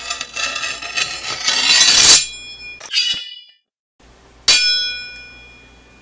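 Produced metallic sound effects: a noisy, ringing swell that builds for about two seconds and cuts off sharply, a short clink, then a single metallic strike about halfway through whose ringing fades over a second or so.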